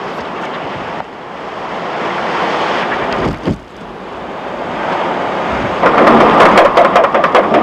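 Hurricane winds blowing hard across the microphone in a steady rush. About six seconds in the wind grows louder, with a spell of rapid crackling buffets.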